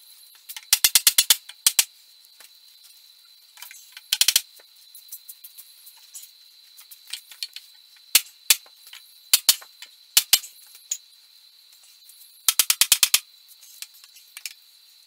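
A mallet striking a wood block to knock apart a loose dowelled chair joint: quick bursts of sharp knocks, one about a second in, another around four seconds and a third near the end, with single knocks between.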